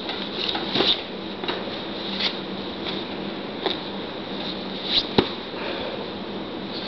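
Scattered light taps and knocks, with one sharper click about five seconds in, over a steady low hum in a small room.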